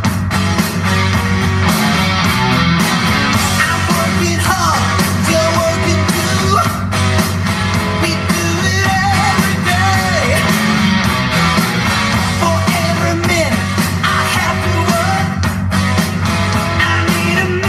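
Background music: a rock song with a singing voice.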